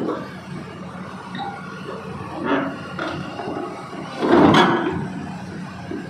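Heavy machinery during the unloading of a backhoe: a steady low engine hum under irregular knocks and clanks, the loudest about four and a half seconds in.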